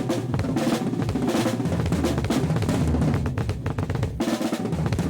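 Live band playing in rehearsal, the drum kit to the fore with rapid snare and bass-drum hits over pitched instruments.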